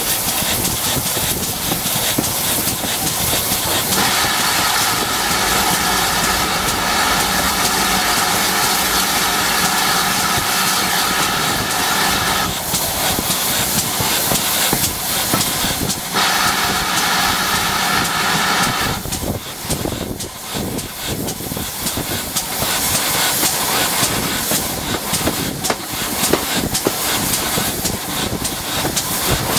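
Steam locomotive running, heard from its footplate: a constant steam hiss over the rumble of the wheels on the rails. A high steady tone sounds from about four seconds in and again briefly around sixteen to nineteen seconds, and after that the rail clatter comes through more plainly.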